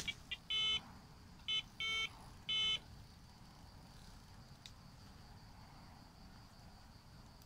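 Electronic carp bite alarms on a rod pod bleeping as line moves across them: a few quick short bleeps, then four longer beeps, all within the first three seconds.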